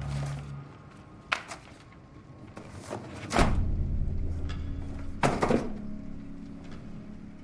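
A box handled on a wooden side table: a few knocks and thuds, the heaviest about three and a half seconds in and again near five and a half seconds. A low drone from the film score enters at the heaviest thud.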